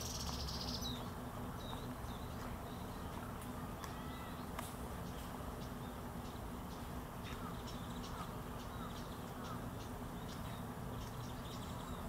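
Outdoor ambience: a steady low hum with scattered faint bird calls, including a short high chattering call in the first second.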